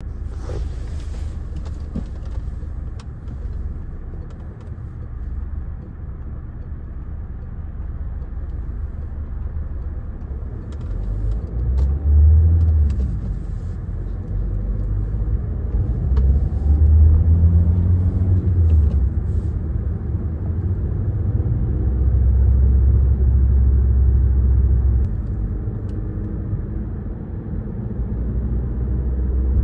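Tyre and road noise of a Citroën C5 Aircross being driven: a continuous low rumble that swells and eases several times.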